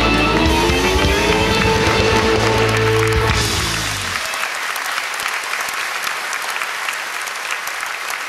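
Live rock band ends a song on a long held note, with bass and drums underneath, stopping suddenly about four seconds in; audience applause follows.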